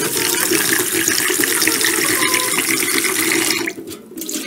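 Kitchen tap running into a rice cooker's inner pot as rice is rinsed and rubbed by hand. The water stops about three and a half seconds in.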